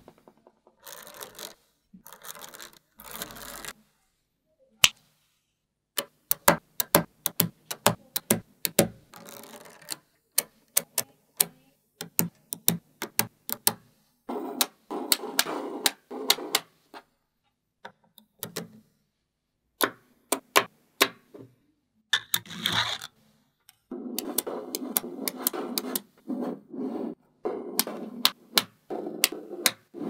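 Small coloured magnetic balls clicking sharply as they snap onto each other, in quick irregular runs of single clicks. In two stretches, the later one near the end, the clicks merge into a dense rattling as a mass of balls is pressed and shifted by hand.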